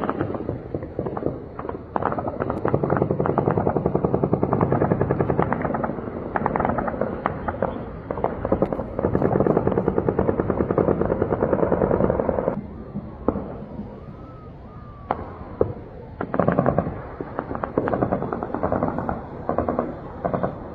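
Heavy automatic gunfire in long, rapid bursts of many shots, exchanged in a clan firefight. It drops to a few scattered shots for several seconds past the middle, then picks up again near the end.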